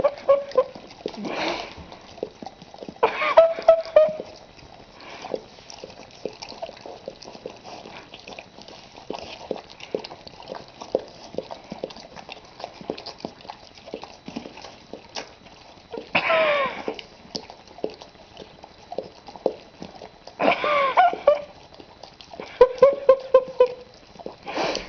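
Two Rottweilers licking and lapping peanut butter off a spoon, a steady run of small wet smacking clicks. Five short pitched vocal sounds, each wavering in pitch, break in about one and a half seconds in, around three seconds in, and three times in the last nine seconds.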